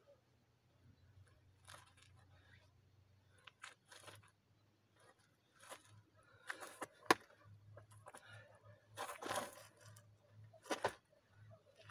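Faint, scattered scuffs and rustles of taiji movement: feet shifting and scraping on a dirt path, with clothing rustling, and a sharp click about seven seconds in.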